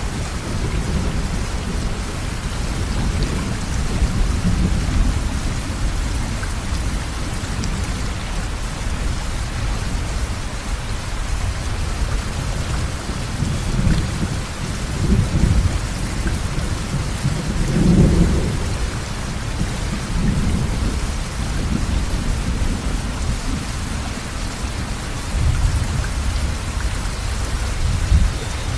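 A river in full flood rushing past a bridge: a steady low rumble of fast water that swells now and then, most strongly about two-thirds of the way in.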